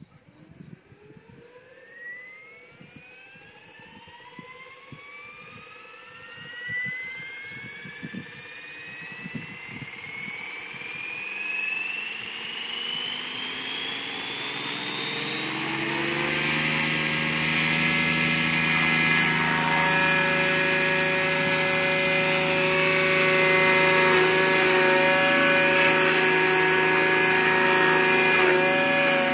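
Electric E6 RC helicopter spooling up: the motor and gear whine climbs steadily in pitch for about fifteen seconds, then holds as a steady multi-toned whine at the raised 2100 rpm head speed. The owner calls this a funny sound and puts it down to the 15-tooth pinion.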